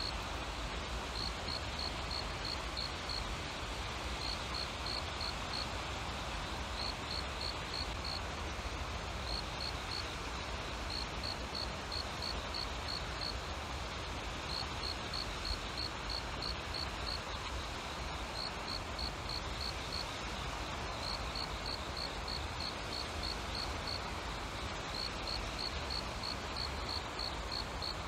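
A cricket chirping in short, high trains of about five quick pulses, repeating every second or two, over a steady outdoor background hiss with a low rumble.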